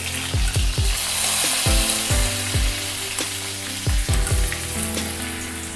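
Freshly sliced onions sizzling in hot oil in a kadhai, over a tempering of mustard seeds, cumin, garlic and curry leaves. The sizzle is strongest in the first few seconds after the onions go in, then eases a little.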